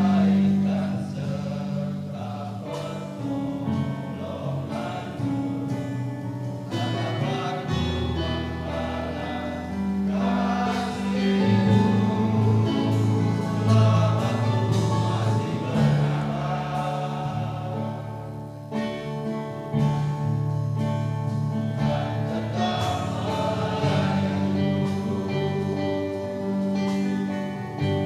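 Men's choir singing a gospel song with instrumental accompaniment.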